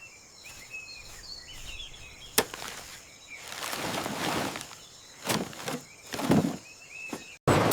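Birds chirping in the background, with a sharp knock about two and a half seconds in and then several rustling, scraping sweeps of handling noise.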